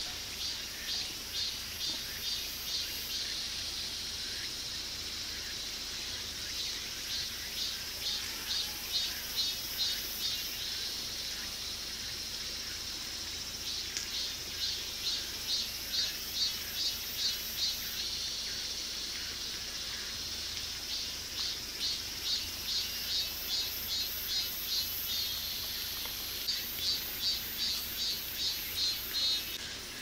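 Cicadas singing in summer woodland: a steady high buzz, with repeated bursts of rhythmic pulsing calls, about two to three pulses a second, that run for a few seconds and stop several times.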